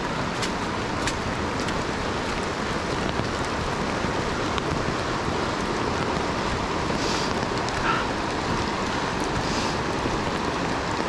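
Steady rushing of the Youghiogheny River's rapids, with a few soft footsteps on the wet trail about seven and eight seconds in.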